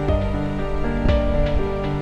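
Background music: sustained instrumental notes over a steady beat, with a stroke about once a second.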